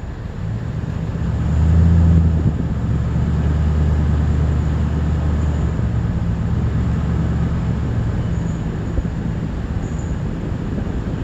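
A motor vehicle's engine running at a steady low hum, swelling louder about two seconds in and then holding even.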